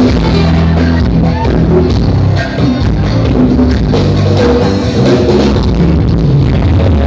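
Live band playing through a PA system during a sound check: drum kit, electric guitar and bass, loud and continuous.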